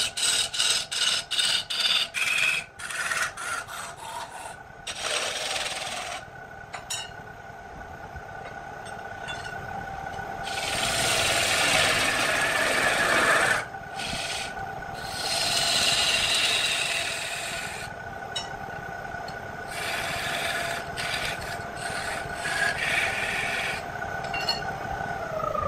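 Electric wood lathe running with a steady motor hum while the spinning wooden log is rubbed down by hand: quick rhythmic strokes at first, then several longer rasping passes. Near the end the motor's pitch falls as the lathe is switched off and spins down.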